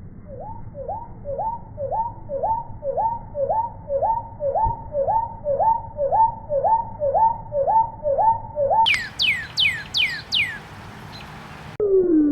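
Bird calls slowed down to a low pitch: a run of about sixteen identical notes, each a quick upward flick and drop, about two a second. Then comes a short series of five or six sharply falling whistled notes, and near the end a single low note begins sliding downward.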